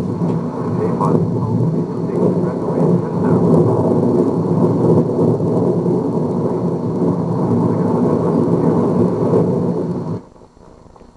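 Strong wind buffeting the microphone of a handheld VHS camcorder: loud, steady, low wind noise that cuts off suddenly about ten seconds in.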